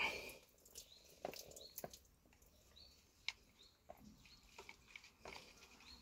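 Faint scattered clicks and light taps of parts being handled while a hose or fitting is worked onto a sprayer pump, with a few short high chirps.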